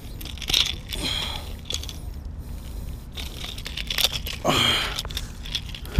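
Clicks and scrapes of pliers and a metal fish gripper working a lure out of a barracuda's mouth, over a low wind rumble on the microphone. A brief falling vocal sound comes about four and a half seconds in.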